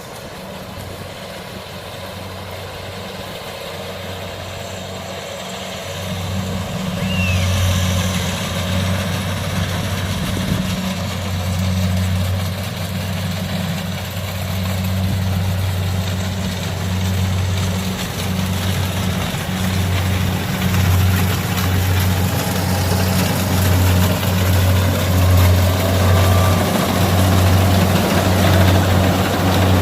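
Kubota DC70 combine harvester's diesel engine running steadily under load with a deep, even hum, growing louder about six seconds in as the machine works closer.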